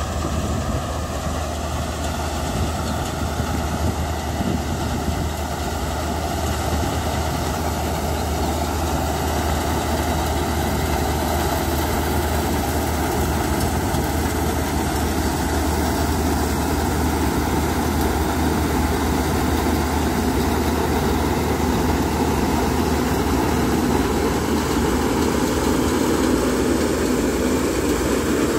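KSA GreenGold 220W self-propelled mini combine harvester running, a continuous engine drone that grows slightly louder over the second half.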